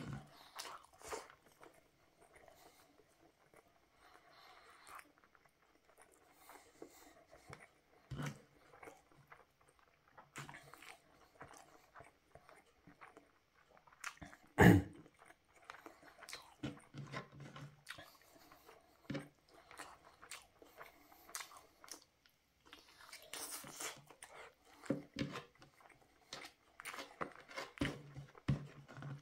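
Close-miked chewing and biting of a man eating chicken and rice by hand: scattered wet clicks and smacks of the mouth and fingers. A single sharp knock, much louder than the rest, comes about halfway through.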